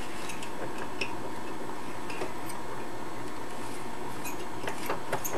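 Light clicks and taps of hands handling a 1961 Webcor Microcorder reel-to-reel tape recorder's head cover, tape path and reels, over a steady hiss. The clicks come sparsely at first and bunch together near the end.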